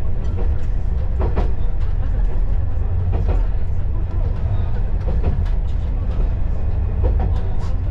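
KiHa 20-series diesel railcar running on the line, heard from inside the car: a steady low engine and wheel rumble with a clack from the rail joints about every two seconds.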